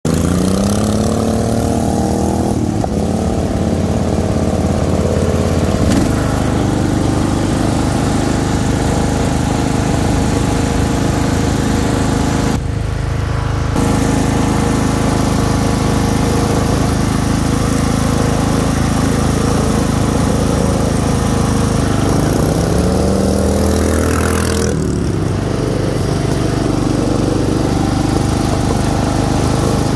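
Craftsman LT1000 lawn tractor's 24 hp V-twin engine with dual exhaust running at speed while driving, revving up near the start and again a few seconds before the end.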